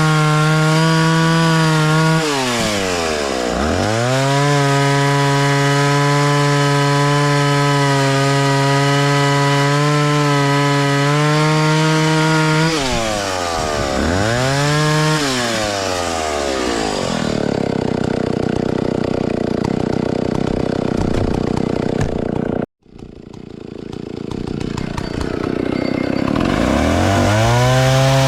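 Vintage Stihl 041 AV chainsaw's 61 cc two-stroke engine running at high revs, dropping off towards idle and climbing back twice, then its clear note breaking up into a rough, steady noise as it cuts through wood. The sound cuts out suddenly about two-thirds of the way through, returns, and the revs climb again near the end.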